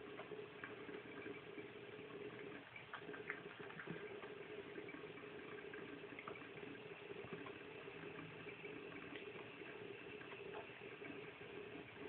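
Tap water running steadily from a bathroom faucet into the sink, with scattered small ticks and splashes as a cat drinks and paws at the stream.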